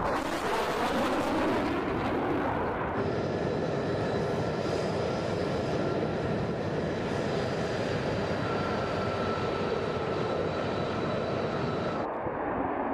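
F-35 fighter jets' Pratt & Whitney F135 turbofan engines. For about the first three seconds a jet passes overhead with a roar that sweeps downward in pitch. Then comes the steadier whine of F-35s taxiing at low power, with several high steady tones. Near the end it changes to a louder roar as one takes off.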